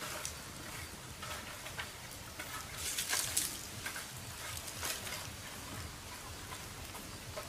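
Small open wood fire crackling and popping irregularly, with a steady hiss and a denser run of crackles about three seconds in.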